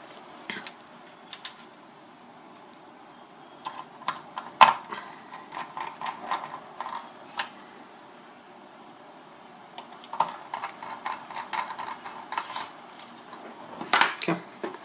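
Small screwdriver and screws clicking and tapping against a graphics card's metal backplate as screws are refitted: scattered light clicks, with one sharper click about a third of the way in.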